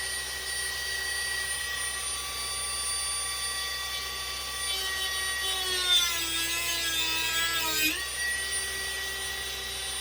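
Dremel rotary tool running with a steady high whine. From about five seconds in it cuts into a wooden dowel: its pitch drops under the load and a rasping cutting noise joins in, and near eight seconds it rises back to free speed.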